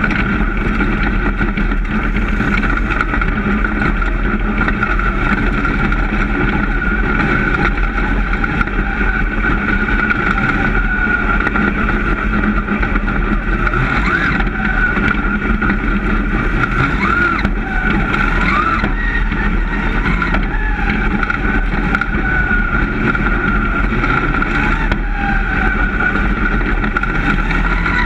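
Dirt-track race car engine running hard, heard from inside the cockpit, with its pitch swinging up and down a little as the driver works the throttle.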